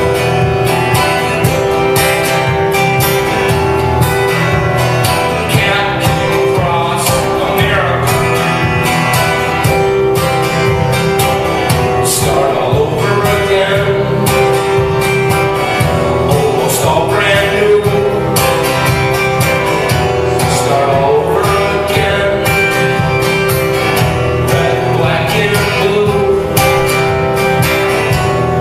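Live music: an acoustic guitar played steadily, with a held note running underneath and a man's voice singing at times.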